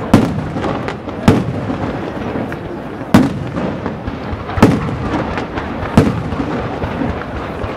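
Fireworks display with five loud bangs, one every second and a half or so, over continuous crackling and rumbling from smaller bursts.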